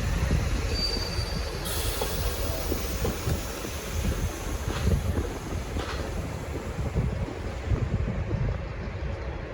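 V/Line N-class hauled passenger train departing, its wheels rumbling on the rails, with a few clicks over rail joints and a brief high wheel squeal about a second in.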